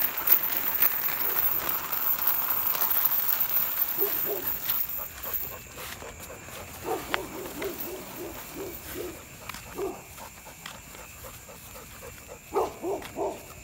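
XL pit bull panting hard with short, pitched whining huffs, two or three a second, growing stronger near the end as it strains forward. Before that, a steady rushing noise fills the first few seconds and fades out about five seconds in.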